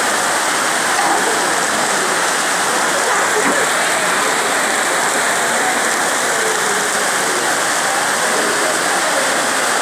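Steady heavy rain, an even hiss that does not let up, with faint voices of people talking underneath.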